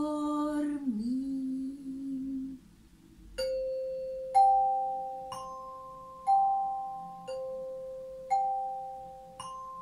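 A woman's voice holds the last sung note of a lullaby until about two and a half seconds in. Then resonator bells are struck with a mallet about once a second, seven times, stepping up and down through three notes, each note ringing on.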